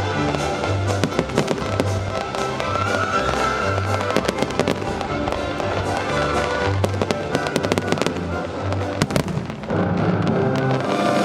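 Fireworks display: repeated sharp bangs and crackling of shells bursting, over the show's accompanying music with a pulsing bass beat. Near the end the music swells louder.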